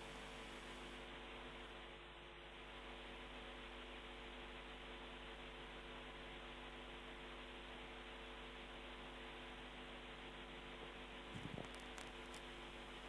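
Near silence: a faint steady electrical hum with hiss, the broadcast's own noise floor, with a brief faint sound about eleven seconds in.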